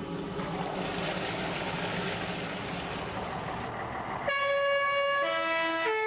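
A steady hiss over a low hum, then, a little over four seconds in, the three-tone horn of a vintage Swiss postbus sounds its tune: loud held notes stepping up and down in pitch.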